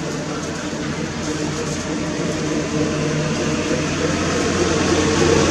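A steady engine drone with a low hum, growing gradually louder.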